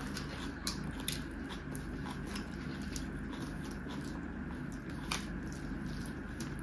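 Close-up eating sounds: fingers squishing and mixing rice into wet pan eromba (taro mash), with closed-mouth chewing. Irregular soft clicks and squelches come several times a second, with a sharper click about five seconds in.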